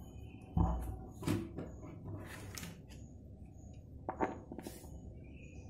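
Handling noise from a cardboard speaker box: a heavy thump about half a second in as it is set down, then a few light knocks and clicks as a charger's barrel plug and cable are handled at the box's DC jack.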